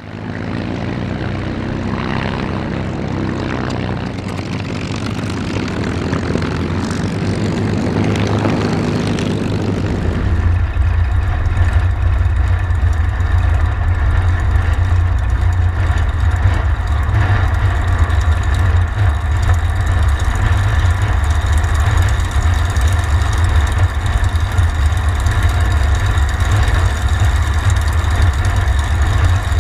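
Rolls-Royce Merlin V-12 engine of the P-51 Mustang air racer Voodoo running, heard from an onboard cockpit camera. About ten seconds in, the sound turns into a heavy, steady low rumble.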